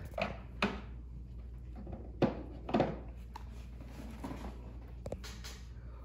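Handling noises of a paperback picture book, its pages being turned: a handful of short knocks and clicks with faint paper rustling, the sharpest pair about two and three seconds in.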